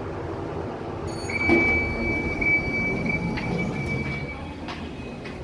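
Passenger lift arriving at a floor, with its sliding doors opening under a rumble. From about a second in, a steady high-pitched whine holds for about three seconds, then stops.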